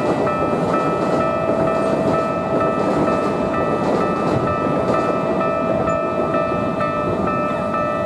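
Japanese railway level-crossing warning bell ringing: an electronic 'kan-kan' tone repeating about twice a second, with a steady rushing noise underneath.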